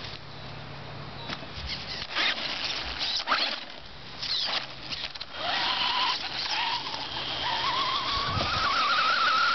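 Electric motor of an RC truck whining, rising steadily in pitch for several seconds from about halfway in as the truck speeds up, over rough tyre noise. Before that, scattered clicks and short squeaks.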